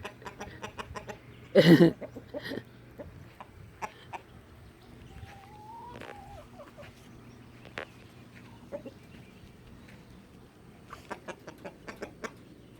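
Hens clucking as they go after tomatoes, with one loud call about two seconds in and a run of quick short clucks near the end.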